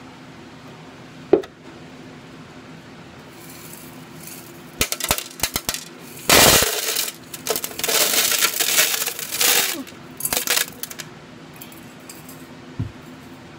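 Small coloured aquarium gravel poured from a glass bowl into an empty clear fish tank: a loud clattering rush of stones hitting the bare bottom for about four seconds from around the middle. A sharp click and a few short rattles come before it, and a last brief rattle after.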